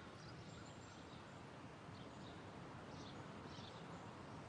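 Faint outdoor ambience with a few soft, distant bird chirps.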